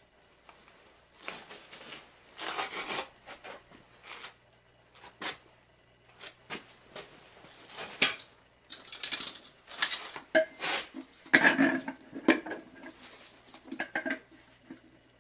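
Irregular handling noises of tools and parts around a small mower wheel on a mini tire changer: rustling and scraping with a few sharp metallic clicks and clinks, the loudest about halfway through.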